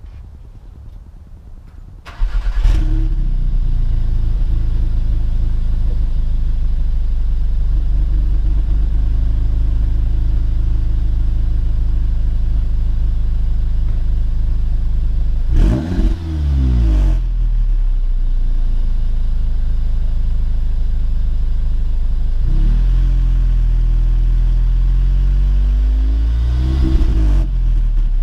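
Audi S3's turbocharged four-cylinder engine starting through the exhaust about two seconds in, flaring and settling to a steady, loud idle. It is revved sharply twice, around the middle and near the end, with a lighter blip in between, the pitch swooping up and falling back each time.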